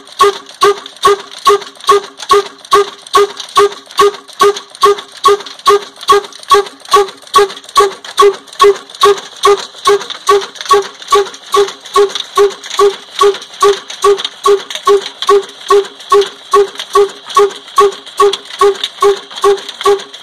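Old black desi single-cylinder stationary engine running steadily, with an even, loud beat about twice a second.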